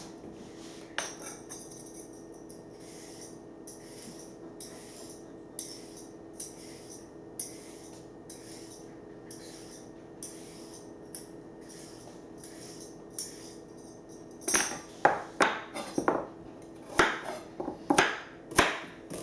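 Spoon stirring oatmeal ingredients in a glass pint jar, clicking against the glass about twice a second, then louder clinks and knocks near the end, over a steady low hum.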